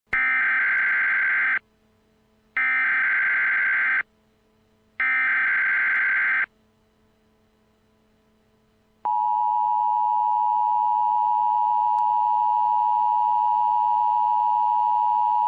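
Emergency Alert System header: three short bursts of harsh, buzzing digital data tones about a second apart, the encoded SAME header that opens a tornado warning alert. After a pause, a steady attention tone starts about nine seconds in and holds.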